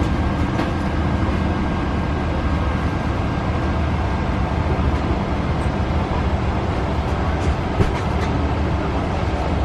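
Steady low rumble and hiss inside a Boeing 777-300ER's passenger cabin before departure, with a couple of light clicks near the end.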